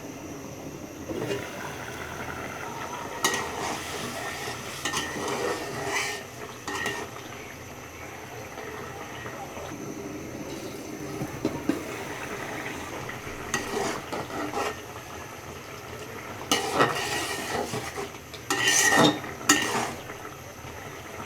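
A spoon or spatula stirring and scraping in a cooking pan, with irregular knocks against the pan, over a low, steady sizzle. The knocking comes in bursts, busiest and loudest near the end.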